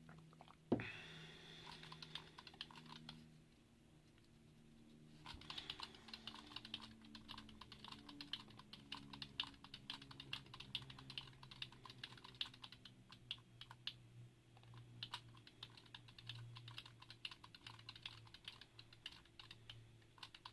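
Typing on a mechanical keyboard: a dense, fast run of key clicks from about five seconds in, with a brief lull partway through. A single sharp knock about a second in, louder than the typing, is followed by a few scattered keystrokes.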